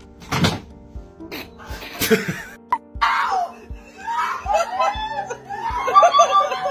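Background music with a steady beat. Two sudden noisy bursts come about half a second and two seconds in, and pitched, voice-like calls rise and fall over the music from about three seconds in.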